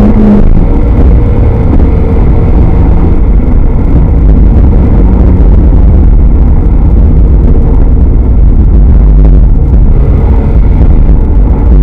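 Spec Miata's inline-four engine heard from inside the cockpit on track: a steady engine note breaks off about half a second in, then engine and road noise run on as a loud, dense rumble.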